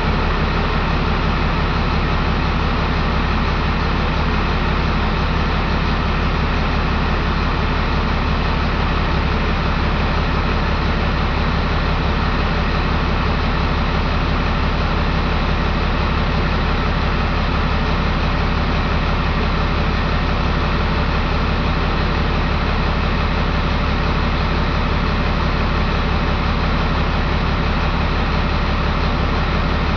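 Caterpillar 3126 inline-six turbo diesel engine running steadily at a constant speed.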